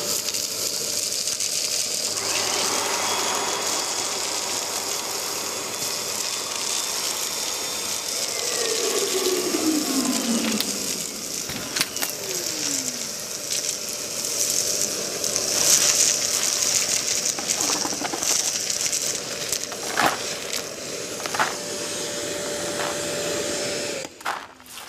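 Kärcher multi-purpose wet-and-dry vacuum running steadily as it sucks up dust, shingle, stones and rubble, with scattered sharp clicks of debris going up the hose. The motor switches off about a second before the end.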